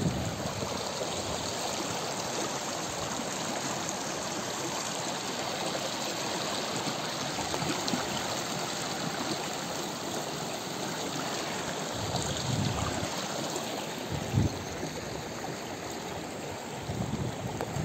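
River water rushing and splashing over rocks in shallow rapids, a steady even rush. A few brief low bumps come through in the last third.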